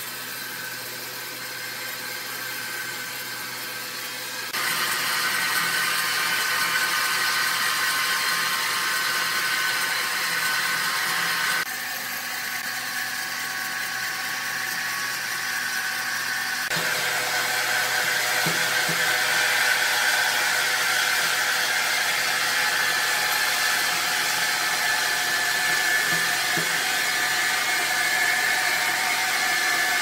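Sawmill saw machinery running: a steady high whine over hiss. It jumps abruptly louder about four seconds in, drops back near twelve seconds, and changes again around seventeen seconds, then holds steady.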